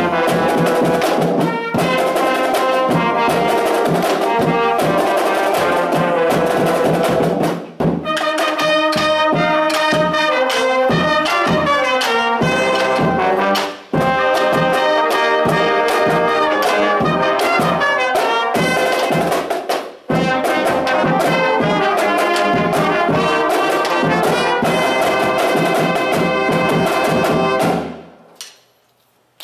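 A high-school marching band's brass line, trumpets and lower brass horns, playing a loud piece together, with short breaks about 8, 14 and 20 seconds in. It ends on a final chord a little before the end.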